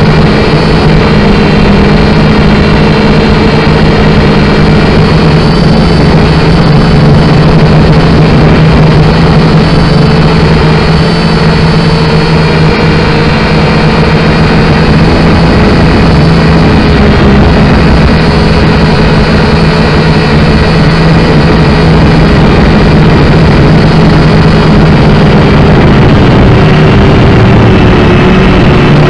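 Syma X5C quadcopter's electric motors and propellers buzzing loudly and steadily, picked up up close by the drone's own onboard camera microphone; a constant pitched whine over a rushing hiss, drifting slightly lower in pitch near the end.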